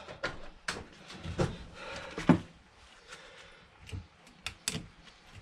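Hand tools and metal parts being handled on a wooden workbench: irregular knocks and clicks, the loudest a single knock a little over two seconds in, then a quick run of clicks near the end.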